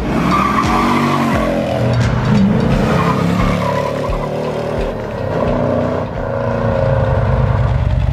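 An engine revving up and down several times, then settling into a steady, lumpy low running near the end.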